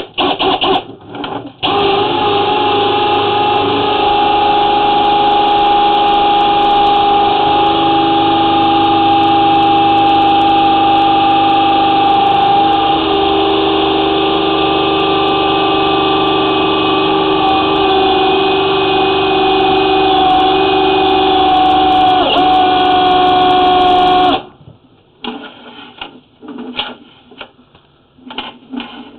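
Drain-cleaning machine's electric motor running steadily while snaking a root-clogged sewer line. Its pitch dips briefly near the end, then it stops suddenly, followed by a few short knocks and clatters.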